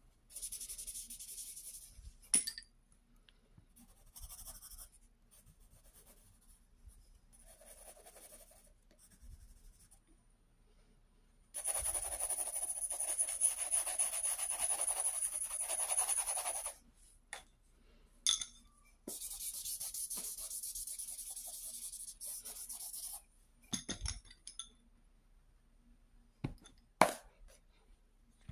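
Pencil scratching across sketchbook paper in bursts of shading strokes, the two longest lasting about four to five seconds each, separated by quiet pauses. A few short sharp taps sound in the second half.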